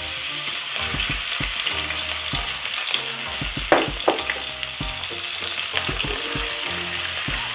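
Cornstarch-coated scallops dropped into hot oil in a wok, sizzling steadily as they start to fry and are stirred with a spatula. The sizzle starts suddenly as they hit the oil, with two sharp knocks a little under four seconds in.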